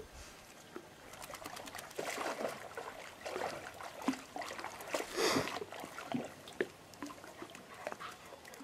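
A dog and a person moving about on bare rock: scuffing footsteps and small clicks and knocks of stones, with a brief, louder rush of noise about five seconds in.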